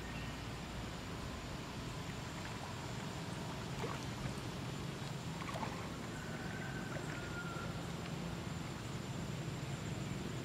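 Steady background noise with a low hum and a few faint clicks; a short high tone sounds about six seconds in and lasts under two seconds.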